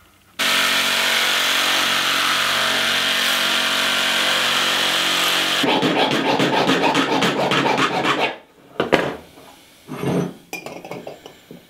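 A power tool runs steadily for about five seconds on the sheet-metal damper disc. It stops suddenly and gives way to a couple of seconds of quick rasping strokes as the metal is filed. Near the end come a few light metal knocks and scrapes as the disc is handled against the steel stovepipe.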